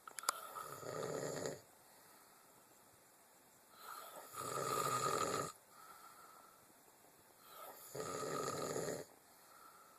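A sleeping man snoring: three snores, each about a second and a half long, coming roughly every three and a half seconds with quiet breathing gaps between them.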